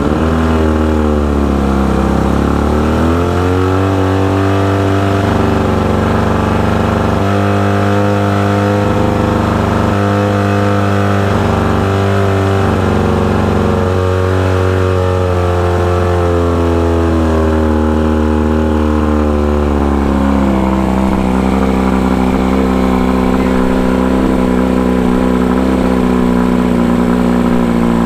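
Mercury Thunderbolt 500 50 hp four-cylinder two-stroke outboard running just after being started by key. Its speed wanders up and down at a fast idle, then drops to a lower, steadier idle about two-thirds of the way through.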